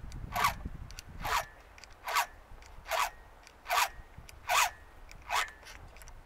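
Chainsaw file rasping across the chain's cutter teeth in steady, evenly spaced strokes: seven strokes, about one every 0.8 seconds.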